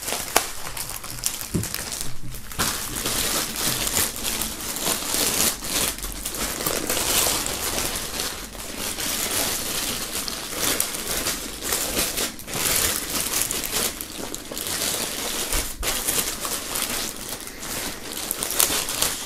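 Clear plastic film bag crinkling and rustling continuously as hands pull a folded, deflated inflatable doll out of it, with a few brief pauses.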